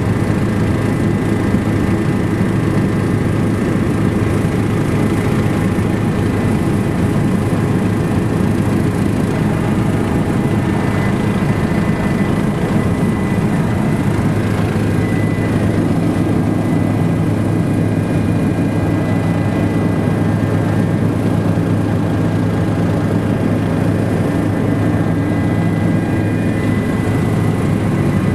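Helicopter in level flight heard from inside the cabin: a loud, steady low rotor and engine drone with a thin, steady high whine over it.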